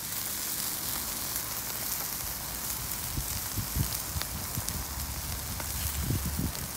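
Chicken drumsticks sizzling on a barbecue grill: a steady hiss with scattered crackles. A few low thumps come near the end.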